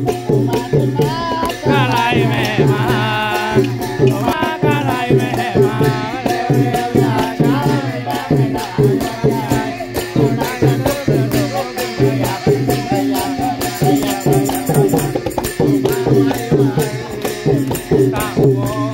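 Thai klong yao long-drum band playing a brisk, steady beat of drums and clashing hand cymbals, with voices singing along over it.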